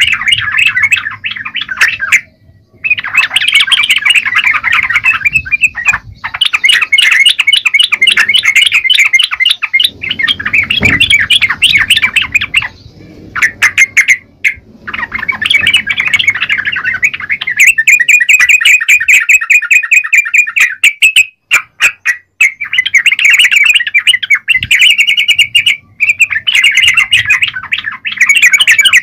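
Yellow-vented bulbul (trucukan) singing loud, rapid chattering phrases again and again, with brief pauses between bouts.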